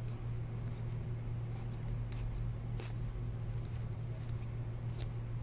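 Topps Chrome baseball cards flipped by hand from one stack to the other, giving a few faint scrapes and ticks over a steady low hum.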